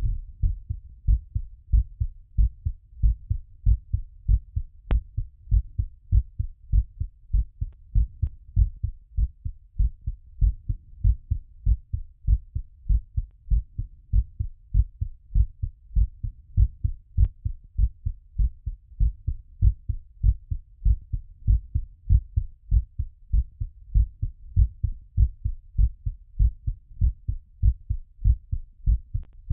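Human heartbeat heard through a stethoscope: a fast, regular train of low lub-dub thumps as the heart recovers after exercise.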